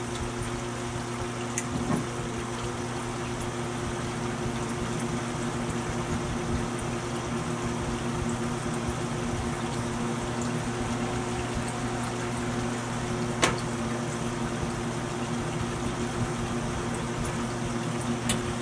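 K40 laser cutter's stock exhaust fan running steadily, with a constant motor hum and the rush of air through the duct and a vane anemometer. A few light clicks, the sharpest about thirteen seconds in.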